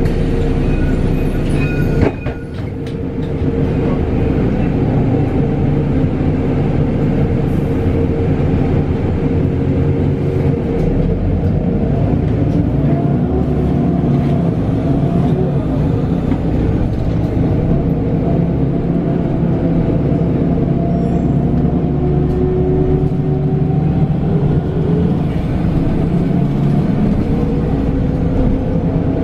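Mercedes-Benz Citaro G articulated CNG bus heard from inside while under way: its gas engine drones steadily, with a faint whine from the ZF six-speed automatic gearbox that slowly rises in pitch and levels off. A single clunk comes about two seconds in.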